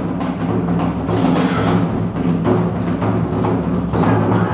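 Awa odori festival music: taiko drums beating a brisk, steady rhythm over sustained low instrumental tones.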